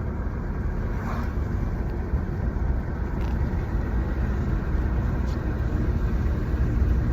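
Car driving slowly on a snow-covered road, heard from inside: a steady low rumble of engine and tyres, with a few faint clicks.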